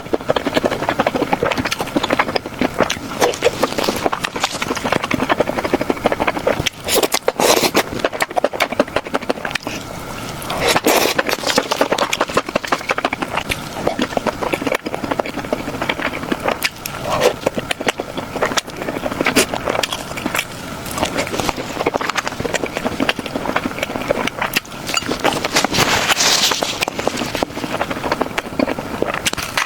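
Close-miked eating sounds: a dense, continuous run of chewing, smacking and wet mouth clicks as food is eaten.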